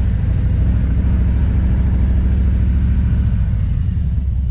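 Motorcycle engine running with a steady low rumble, easing slightly about three seconds in.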